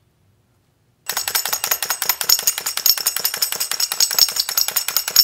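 Toy cymbal-playing monkey clashing its small cymbals in a rapid, even clatter of metallic strikes with a high ringing, starting about a second in.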